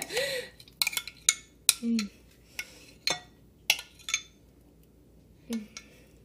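Spoon clinking and scraping against a glass measuring cup as thick yogurt is scooped out of it into a glass mixing bowl: a string of separate, irregularly spaced clinks.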